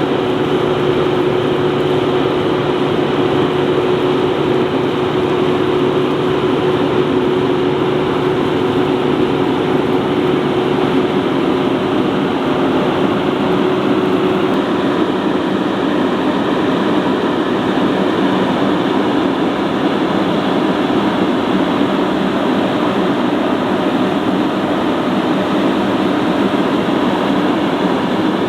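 A heavy farm machine's diesel engine running steadily under load, with a constant drone and a held hum that shifts in pitch about halfway through.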